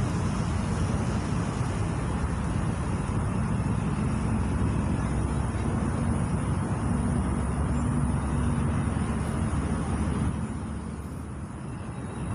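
Steady low outdoor background rumble, easing briefly near the end.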